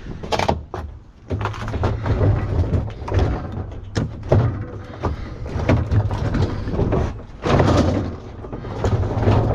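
Repeated knocks and clatter of things being shifted and set down in a pickup truck's bed, over a low steady rumble.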